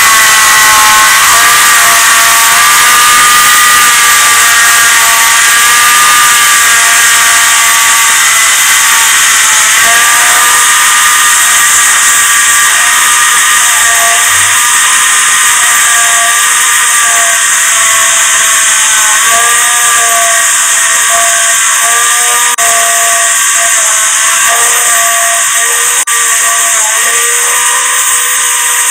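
Small electric angle grinder clamped in a vise, running with a buffing wheel: a loud, steady high-pitched whine. Its pitch dips briefly several times as a small metal part is pressed against the wheel and loads the motor.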